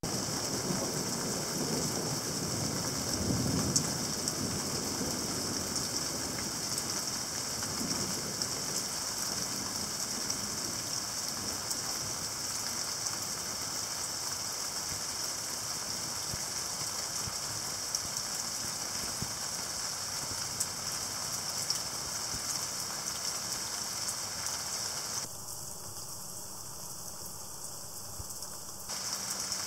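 Steady rain falling, an even hiss of drops on the ground, dipping slightly for a few seconds near the end.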